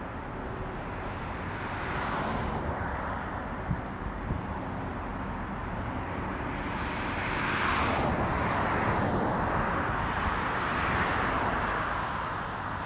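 Outdoor traffic noise: a steady rush that swells and fades as vehicles pass, loudest about eight seconds in.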